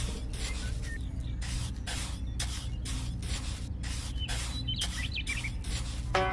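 Small metal trowel scraping and smoothing wet cement in short repeated strokes, about two a second.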